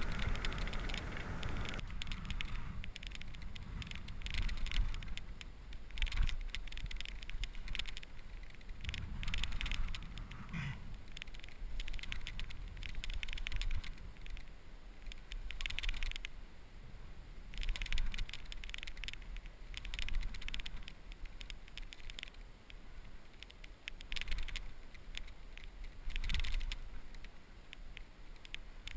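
Fishing reel being worked while fighting a hooked striped bass: repeated short bursts of rapid clicking and whirring every two to three seconds.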